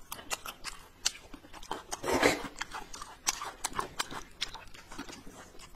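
Close eating sounds: wet chewing and mouth clicks from slurping and chewing wide buckwheat noodle sheets, with one louder slurp about two seconds in.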